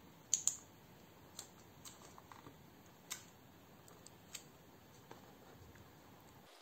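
Faint small plastic clicks and taps as fingers press a MacBook Pro battery connector into its socket on the logic board: two sharper clicks about half a second in, then scattered light ticks.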